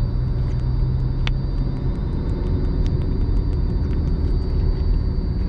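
Car engine and road rumble heard from inside the cabin as the car picks up speed in second gear. There is a light click about a second in.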